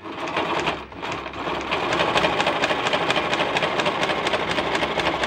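Brother Pacesetter electric sewing machine stitching through cloth at a steady fast speed, with a rapid, even clatter of needle strokes. It starts up at once, eases off briefly about a second in, then runs on evenly.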